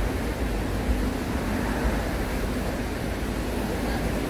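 Small waves breaking and washing onto a sandy beach, a steady surf with a low rumble underneath.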